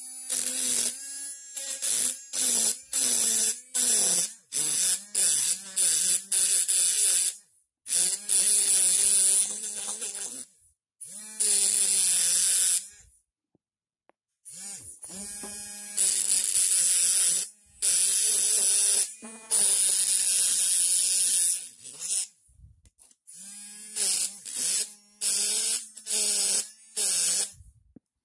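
Battery-powered electric engraving pen buzzing, its tip grinding and scratching into a stone pebble. It runs in many short stretches, stopping and starting again several times.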